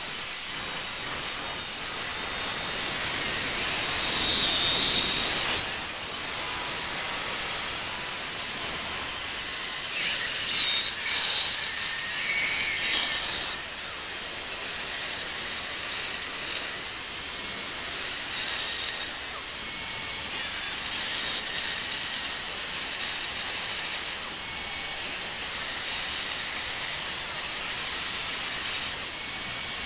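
Dentist's drill whining at a high pitch over a hiss, its pitch dipping and rising again and again.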